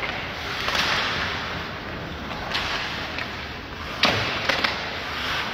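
Ice hockey play: skates scraping the ice in swells of hiss, and a quick cluster of sharp cracks from sticks and puck about four seconds in.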